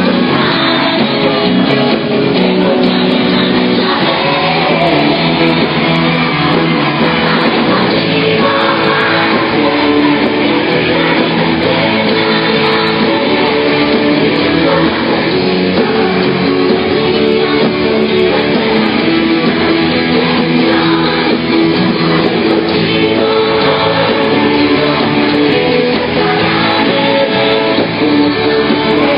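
Live pop-rock band playing with electric guitar while a woman sings lead through a handheld microphone over the concert sound system.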